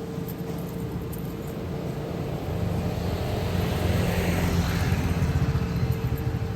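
A motor vehicle engine running, with a rapid low pulsing, getting louder from about halfway through.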